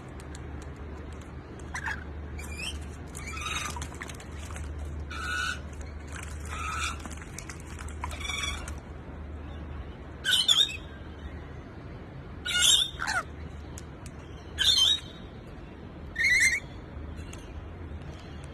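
Pet parrots squawking: softer harsh calls in the first half, then four short, loud squawks about two seconds apart, over a steady low hum.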